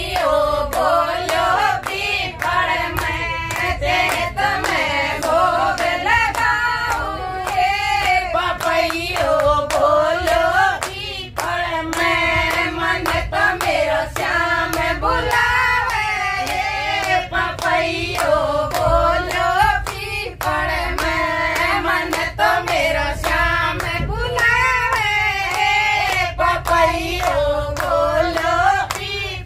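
A group of voices singing a song together, with hand clapping keeping a steady beat, over a steady low rumble from the moving train.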